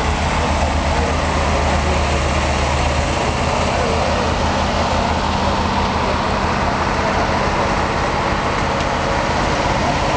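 Steady low hum of the diesel-powered El Chepe passenger train idling at the platform, its deepest note easing off about three seconds in.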